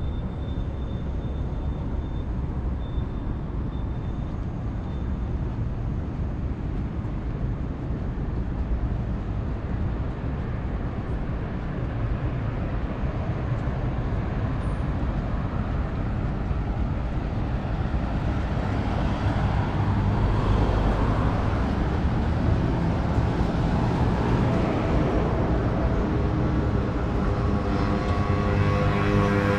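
Night city street ambience: steady road-traffic rumble that swells around twenty seconds in as vehicles pass. Near the end a steady pitched drone comes in over it.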